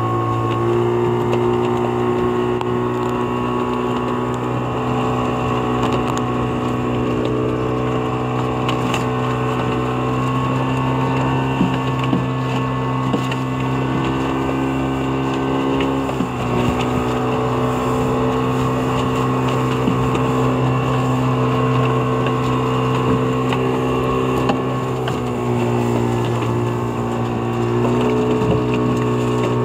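A small fishing boat's engine running steadily under way. Its note dips briefly about halfway through, then settles back.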